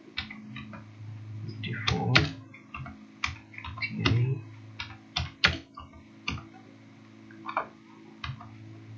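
Computer keyboard keys being typed in short irregular runs of clicks, over a low steady electrical hum.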